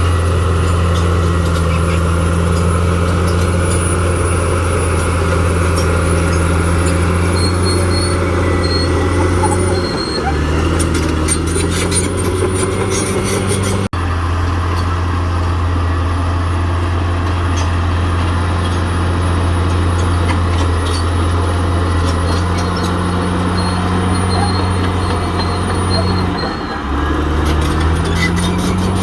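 Caterpillar D6R XL bulldozer's diesel engine running steadily under load. Its note drops briefly twice, about a third of the way in and near the end, each time followed by a few seconds of metallic clatter from the tracks.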